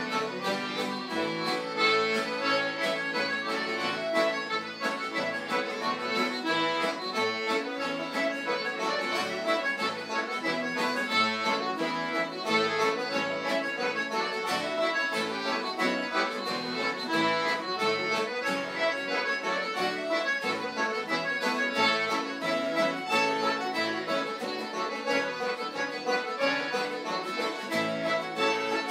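Live Irish traditional session music: an accordion-led tune played continuously, with many quick note changes over a regular rhythmic accompaniment.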